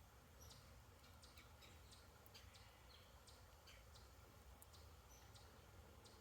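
Very faint outdoor nature ambience: scattered short, high chirps and ticks at irregular intervals over a steady low hum.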